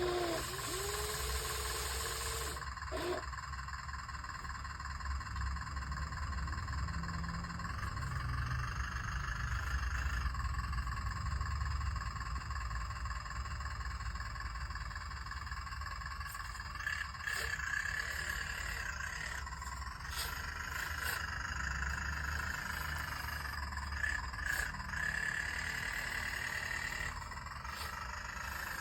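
Electric motor and hydraulic pump of a radio-controlled excavator whining steadily while it works, the pitch wavering slightly as the load changes, over a low rumble.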